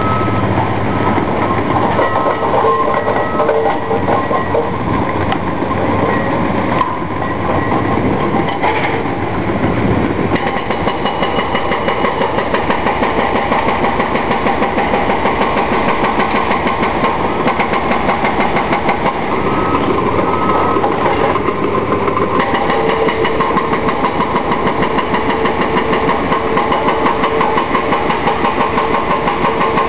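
Hydraulic breaker on a tracked excavator hammering the concrete bridge deck in a fast, even stream of blows, over the steady running of the excavator's diesel engine. The hammering sets in about a third of the way in; before that the engine runs on its own.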